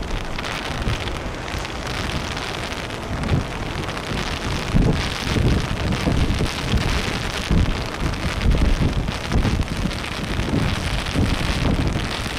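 Storm wind buffeting the microphone in irregular gusts over a steady rush of wind and rain.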